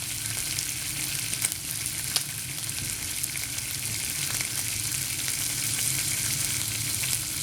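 Bacon rashers frying and sizzling steadily, with scattered pops and crackles of fat.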